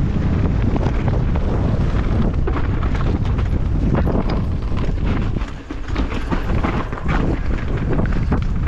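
Wind buffeting the microphone over the clatter of a downhill mountain bike riding fast over rough trail, with frequent knocks and rattles from the bike, easing briefly about five and a half seconds in.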